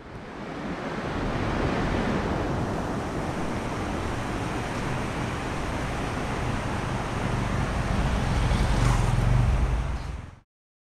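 Steady rushing of a fast, rocky mountain river, with wind buffeting the microphone, heaviest shortly before the end. The sound cuts off suddenly near the end.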